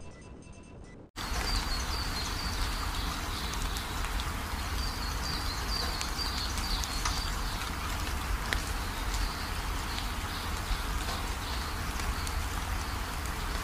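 A faint tail of background music, cut off suddenly about a second in, then a steady hiss of falling water: a distant waterfall and light rain. Short, high chirps repeat over it, mostly in the first half.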